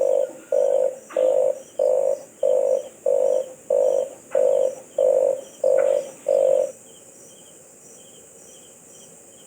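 Red collared dove calling: a run of about eleven low, croaky notes in an even rhythm, a little under two a second. The calling stops about two-thirds of the way in.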